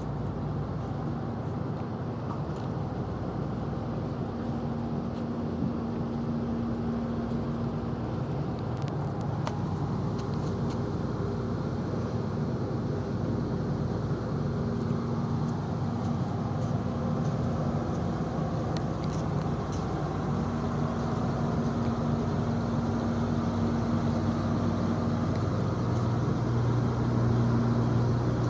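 Steady low engine hum of a moored ship running, a constant drone with a deeper tone that grows a little louder near the end.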